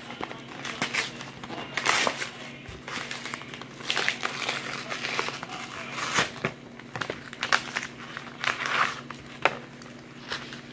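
Packaging crinkling and rustling in irregular bursts as it is handled and opened, over a steady low hum.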